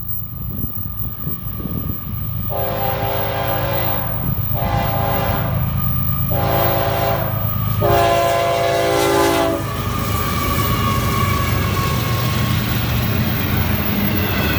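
Horn of a Florida East Coast Railway GE ES44C4 diesel locomotive sounding four blasts, then the locomotives and intermodal cars passing close by with a steady rumble and clickety-clack of wheels on rail joints.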